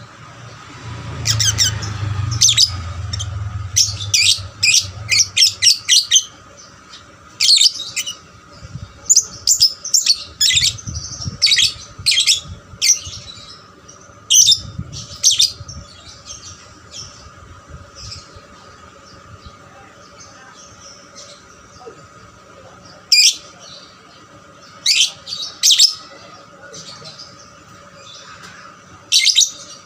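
Young lovebird chirping: sharp, high calls in quick clusters with pauses between, busiest in the first half and again near the end. A low rumble sits under the calls for the first few seconds.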